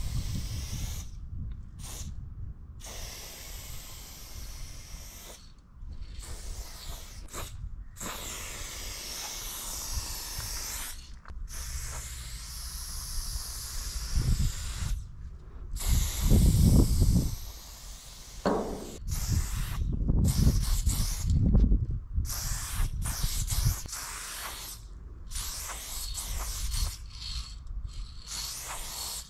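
Aerosol spray-paint can hissing in long bursts, broken by short pauses every few seconds as the nozzle is released and pressed again. A low rumbling runs underneath, loudest about halfway through.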